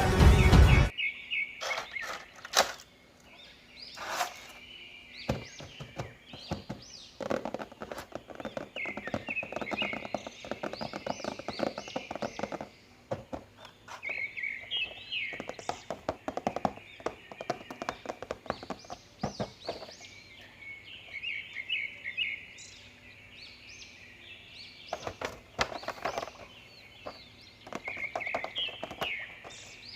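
Music cuts off about a second in. Small birds then chirp in repeated short phrases, with scattered sharp clicks and knocks throughout.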